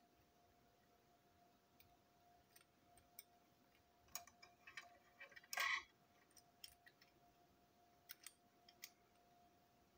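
Light clicks and taps of small model train coach parts being handled on a tabletop, with one brief louder scrape a little past halfway.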